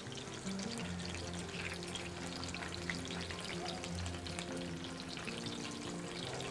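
Whole young potatoes frying in hot vegetable oil in a saj pan, a steady fine sizzle and crackle, under background music.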